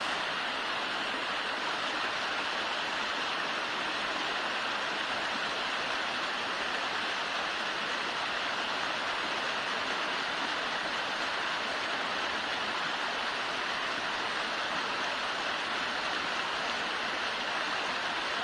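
A small creek waterfall pouring steadily: a constant, even rush of falling water.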